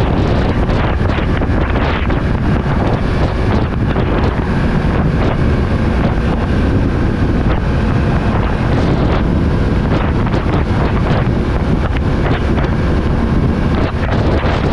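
Steady, loud wind rush and buffeting on a GoPro Hero9's microphone while riding a motorcycle at highway speed.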